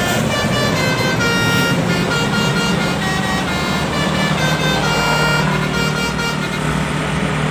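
Telolet bus horn playing a quick melody of short notes stepping up and down in pitch, over the steady hum of the bus engine; the tune stops near the end.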